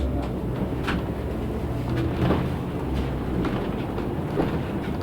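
Cabin noise of a LiAZ 6213.65 articulated city bus under way: the engine running with a steady low drone, and the body rattling and knocking a few times.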